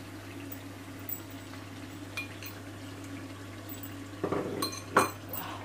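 A spoon scraping and clinking against a non-stick cooking pot as a mutton curry is stirred, a few knocks near the end with one sharp clink loudest, over a steady low hum.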